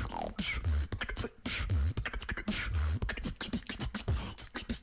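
Female beatboxer performing a fast rhythm with her mouth: sharp snare- and hi-hat-like clicks over deep bass booms about once a second, with sung gliding tones woven in.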